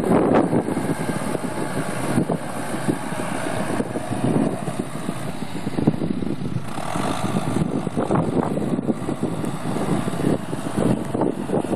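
John Deere 6400 tractor's four-cylinder diesel engine running steadily as the tractor drives across the field with its front loader.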